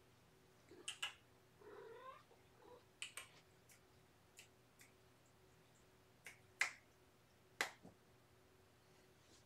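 A cat gives one short meow about two seconds in, among several sharp clicks, the loudest two near the end.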